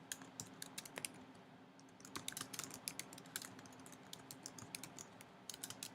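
Typing on a computer keyboard: faint, quick, irregular key clicks that pause for about a second near the start and then run on in a dense flurry.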